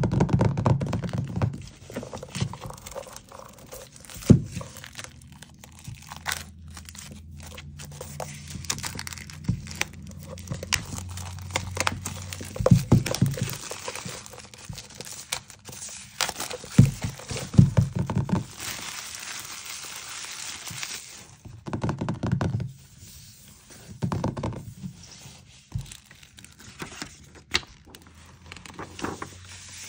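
Hands unwrapping a shrink-wrapped hardcover book: fingernails tapping and scratching on the plastic film over the cover, then the film crinkling and tearing as it is peeled away. Near the end the hard cover and first pages are opened and turned.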